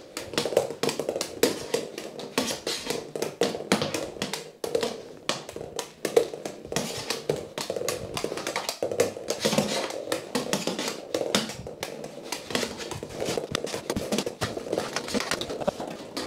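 Plastic floorball stick blade and hollow plastic floorball clicking and tapping against each other and the floor in fast stickhandling: an unbroken run of sharp clicks, several a second.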